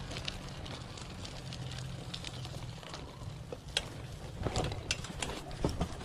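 Bicycle rattling as it rolls along a dirt trail and onto a wooden plank boardwalk, with a run of sharp knocks from the tyres and frame over the planks in the last couple of seconds.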